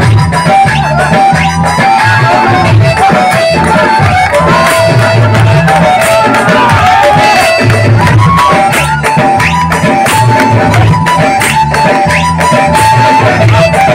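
Lively Bengali kirtan folk music with a repeating drum rhythm under a high melody line.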